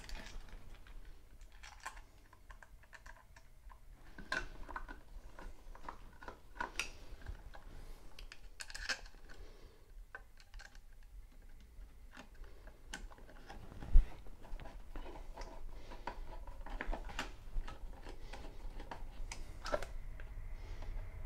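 Hand screwdriver turning the cover screws of a wall-mounted fused connection unit back in: a scatter of small clicks and scrapes of metal on screw heads and faceplate. One dull knock sounds about two-thirds of the way through.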